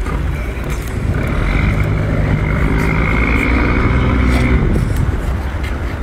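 Low engine rumble with a steady pitched drone that swells from about a second in and fades out near the five-second mark.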